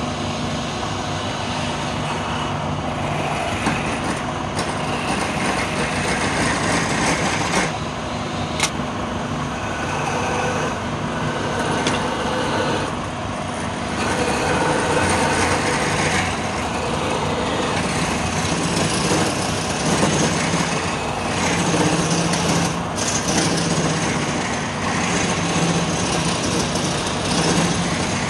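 Wood lathe running while a hand-held chisel cuts a spinning wooden spindle: a steady motor hum under the scraping hiss of the cut, which swells and eases as the tool works.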